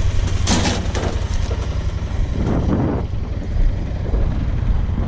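Honda Pioneer side-by-side's engine idling with a steady low drone. Two brief rustling or scuffing noises fall over it, about half a second and two and a half seconds in.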